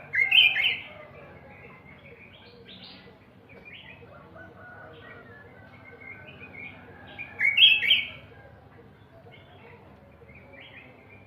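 Small songbirds chirping and singing in short, varied phrases, with two loud bursts of chirps, one just after the start and another about seven seconds in, and quieter chirps in between.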